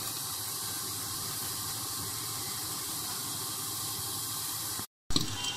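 Small peeled shrimp and onions simmering and sizzling in their own released water under a glass lid, a steady hiss. The sound cuts out for a moment near the end.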